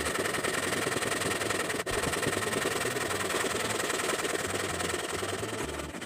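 Background music with a fast, dense beat and a stepping bass line, briefly cutting out about two seconds in.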